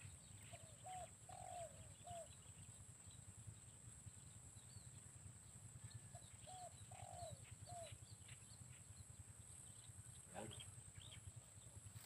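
A dove cooing faintly, a short phrase of four low notes given twice, several seconds apart, with faint chirps of small birds between.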